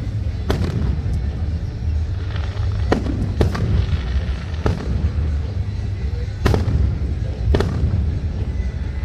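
Fireworks going off: about six sharp bangs at irregular intervals, over a steady low rumble.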